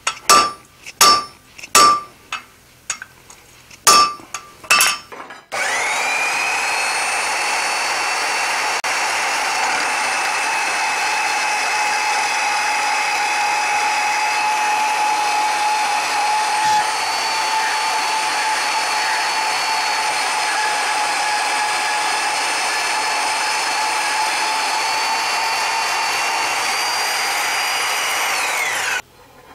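About ten ringing hammer blows driving a hand punch into red-hot steel on an anvil during the first five seconds. Then a band saw starts and runs steadily with a high whine as it cuts through the punched steel bar, winding down with a falling pitch just before the end.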